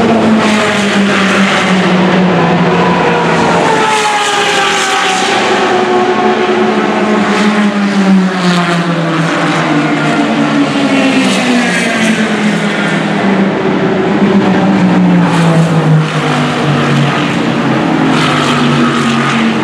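Race cars passing one after another at speed, a nearly continuous engine note whose pitch drops as each car goes by, several times over.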